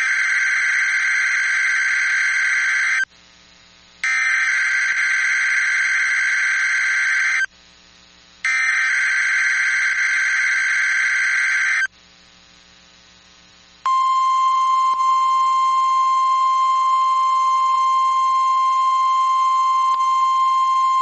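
NOAA Weather Radio Specific Area Message Encoding (SAME) header for a required weekly test: three identical bursts of harsh, buzzy data tones, each about three seconds long with a second's gap between them. About 14 seconds in, a steady single-pitch alert tone near 1 kHz starts and holds.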